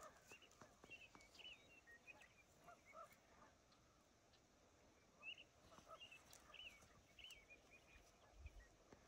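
Faint bird calls: short chirping notes in two clusters, one in the first three seconds and another from about five to seven and a half seconds in.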